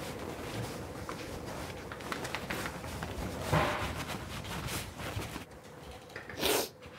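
Rustling and handling of clothes and bedding, with a short sharp noise about three and a half seconds in and a louder one near the end, over a faint steady room hum.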